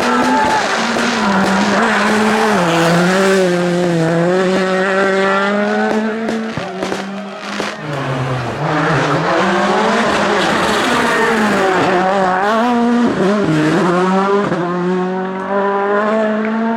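A rally car's engine revving hard, its pitch rising and falling with gear changes. About halfway through the revs drop for braking, with sharp crackling pops from the exhaust, then climb again.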